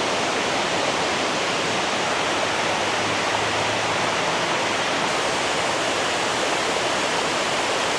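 Waterfall cascading down several rock tiers, a steady, unbroken rush of water; the falls are running with plenty of water.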